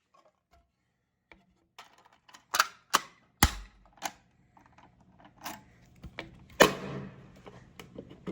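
Irregular sharp clicks and knocks, about a dozen, starting after a second of near silence. One knock about halfway has a heavier low thump, and the loudest comes near the end, over a faint low hum.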